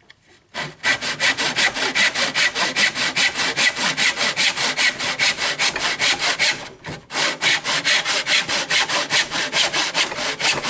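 Backsaw cutting across a length of timber held in a sawing box, with quick, even back-and-forth strokes and a short break a little past halfway.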